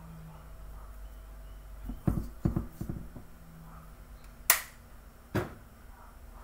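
Plastic spice shaker bottles handled over a kitchen counter: a cluster of dull knocks about two seconds in, then two sharp clicks about a second apart, the first the loudest.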